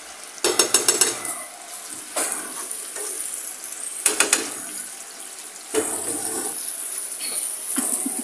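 Sliced onions sizzling in a frying pan on a gas stove, with a wooden spatula stirring and scraping them. A fast run of sharp taps of the spatula against the pan comes about half a second in and another around four seconds.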